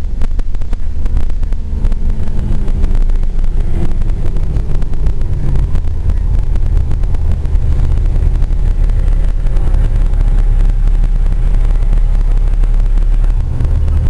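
Gillig transit bus under way, heard from inside the passenger cabin: a steady low drone of the engine and drivetrain with road noise, and a faint whine that drifts down in pitch a second or two in.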